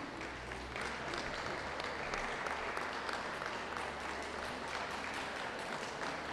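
Audience applauding, growing louder about a second in.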